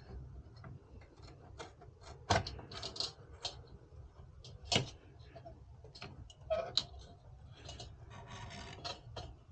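Clicks, taps and knocks of computer hardware and tools being handled during a CPU cooler installation. Louder knocks come about two seconds in, near five seconds and near seven seconds, with a brief rattling near the end, over a low steady hum.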